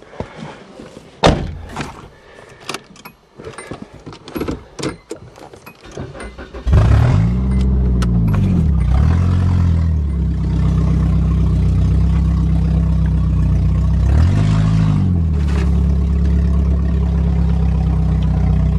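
A few scattered knocks and clattering bumps, then a car engine starts about seven seconds in, revs up and back down twice, and settles into steady running.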